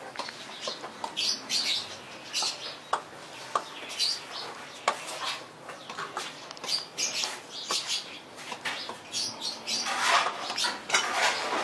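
Birds chirping in short, irregular calls, mixed with clicks and rustling, with a louder stretch of rustling about ten seconds in.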